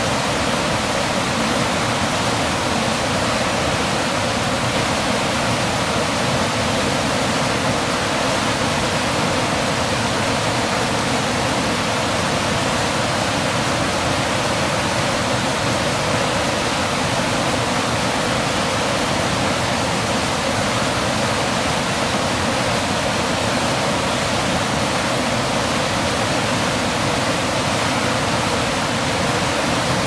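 Waterfall: falling water making a loud, steady rush that doesn't change.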